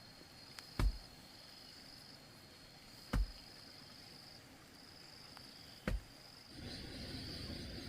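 Insects trilling steadily at a high pitch, broken by three sharp thuds about two and a half seconds apart. Near the end a louder, rustling noise sets in.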